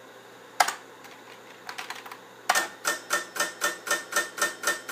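A few light keyboard clicks as a command is typed, then a Shugart 800 8-inch floppy drive clicking in a steady rhythm, about four clicks a second for nearly three seconds, as it reads the disk directory.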